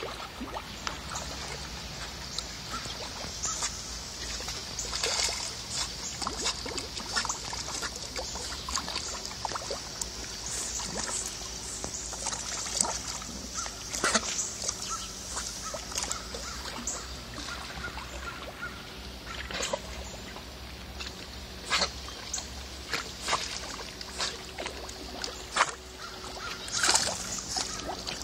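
A dog swimming, paddling through water: continuous lapping and sloshing with scattered small splashes.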